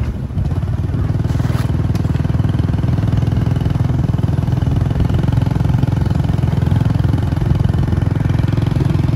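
Small motorcycle engines running steadily at low road speed.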